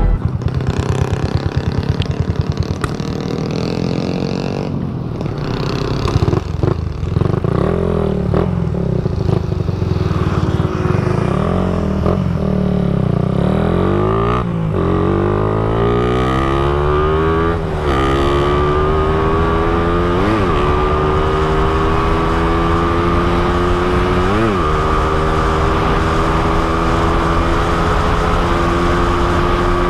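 Suzuki motorcycle engine, running on a newly fitted Koso 30 mm flat-slide carburettor, pulls away and accelerates up through the gears. Its pitch climbs in steps, dipping briefly at each of about four upshifts, then settles into a steady higher cruise near the end.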